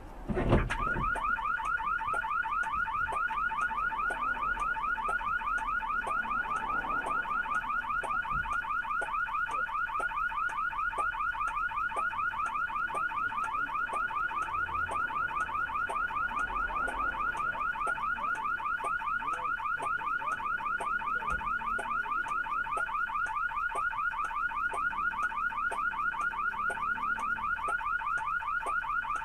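A sudden hard crash impact, then straight away a car alarm sounding a fast, steady, repeating electronic warble.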